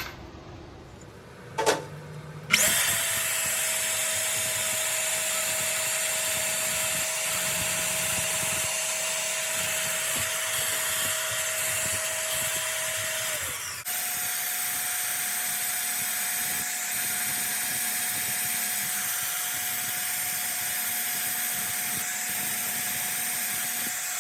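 Electric power tool running steadily with a constant high whine. It starts abruptly a couple of seconds in. About halfway it breaks off sharply and resumes with the whine slightly higher in pitch.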